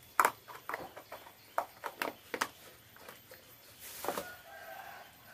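A run of sharp plastic clicks and taps as a small plastic food container is handled over a clay mortar, then a plastic bag rustles about four seconds in. Near the end a farm animal gives a faint, drawn-out call.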